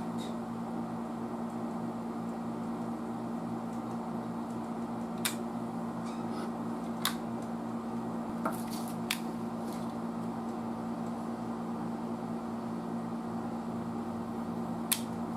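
A few sharp, isolated clicks of small tools being handled at a workbench, over a steady electrical hum.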